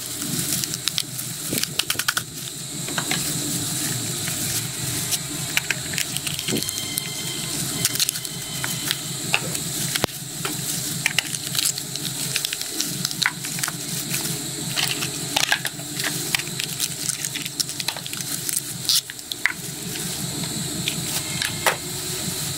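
Plastic yogurt cups squeezed and crumpled by hands in thin plastic gloves, with many short crinkles and clicks, over a steady background hiss.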